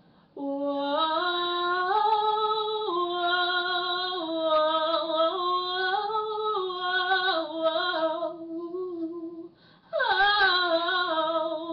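A woman singing a cappella in gospel style: a long ad-lib on "whoa" that steps and slides through a run of held notes. It breaks off about nine and a half seconds in, and a new phrase starts with a falling slide.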